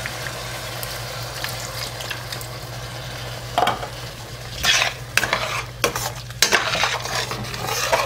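Liver masala sizzling steadily in a stainless steel pan, over a steady low hum. From about halfway, a steel spoon stirs and scrapes through the thick wet masala in irregular strokes.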